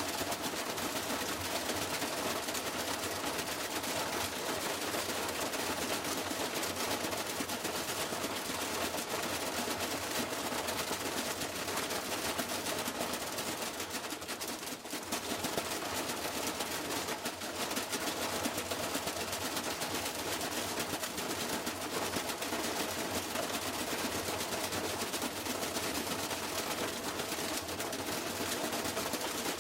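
Washing machine rattling and banging with rapid, continuous knocks.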